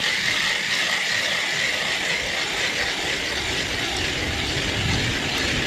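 Hand-cranked ice auger boring a hole through lake ice: a steady, unbroken scraping grind of the blades cutting.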